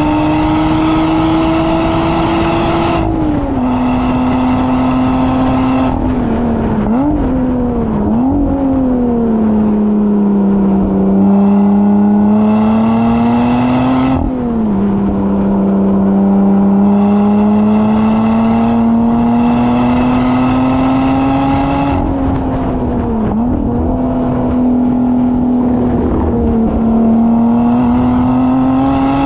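A track-day vehicle's engine heard onboard while lapping a circuit at speed. The revs climb and fall, with sudden drops in pitch at gear changes about three seconds and fourteen seconds in, and quick rev blips around seven to eight seconds and near twenty-three seconds as it slows for corners.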